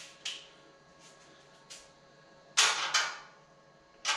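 Metal rack hardware being handled: a Dell ReadyRails server rail and its threaded-rack adapter bracket knock against the rack post. A few light clicks come first, then two loud clanks about a third of a second apart a little past halfway.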